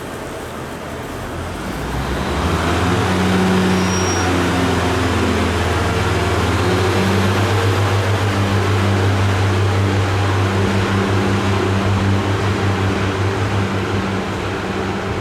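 Diesel railbus engine, as on a Class 143 Pacer unit, growing louder about two seconds in and then running at a steady low throb.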